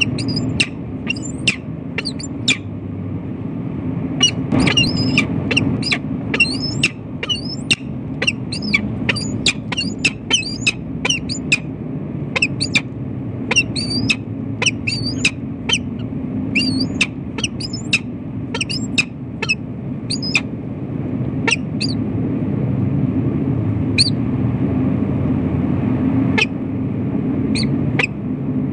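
Peregrine falcon giving a long run of sharp, harsh repeated calls, about two a second, easing off near the end to a few single calls. A steady low hum lies underneath.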